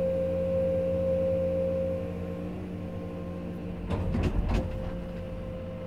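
Komatsu PC210 excavator's six-cylinder diesel engine running steadily with a constant hum, and a short clatter of knocks about four seconds in.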